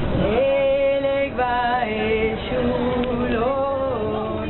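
A voice singing a slow chant in long held notes that step up and down in pitch.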